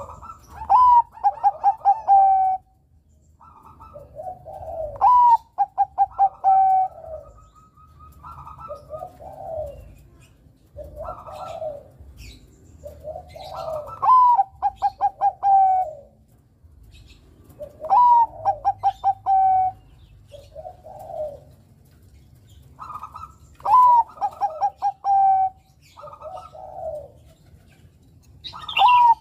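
Zebra dove (Thai-bred perkutut bangkok) singing its cooing song. A phrase comes roughly every four to five seconds: a rising opening note, then a quick run of short staccato coos. Shorter separate coos fall between the phrases.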